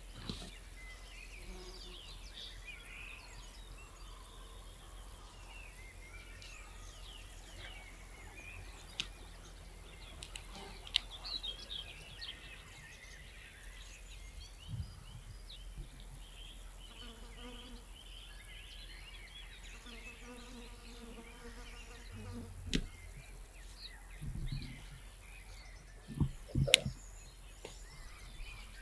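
Outdoor nature ambience: small birds chirping, with an insect buzzing past for a few seconds in the middle. A few sharp knocks and low thumps come near the end.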